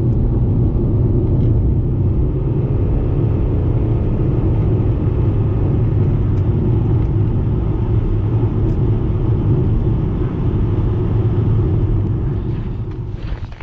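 Steady low rumble of a car driving, engine and road noise heard from inside the cabin, dying away near the end.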